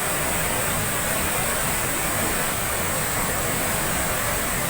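A cascade waterfall heard up close: a steady, loud rush of falling water.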